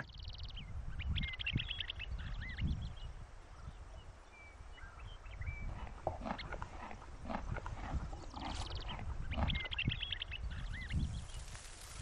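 Bighorn sheep grazing close up: grass being cropped and chewed in scattered crisp crunches and clicks over a low rumble. A small bird sings the same short chirping phrase twice, near the start and again near the end.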